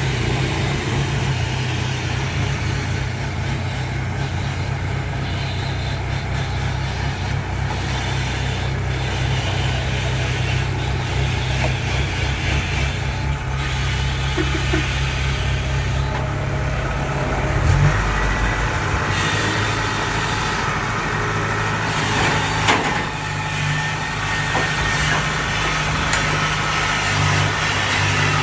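Heavy diesel engine running at a steady idle. Its note changes about 18 seconds in, and there is a short sharp sound about 22 seconds in.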